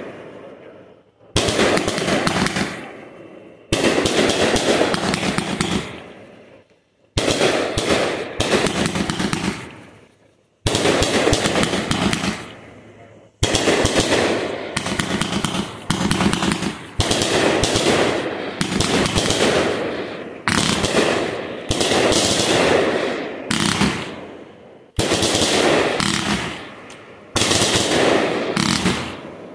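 Fireworks bursting overhead in quick succession: each burst starts with a sharp bang and runs into rapid crackling that dies away over a second or two. A fresh burst comes every two to three seconds.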